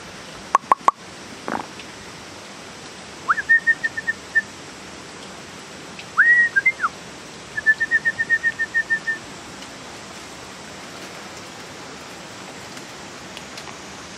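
High whistled calls in three short phrases a few seconds apart: a rising note that breaks into quick repeated notes, a single arched note, then a rapid run of notes. They sound over the steady rush of a nearby stream, with a few sharp clicks just before the first phrase.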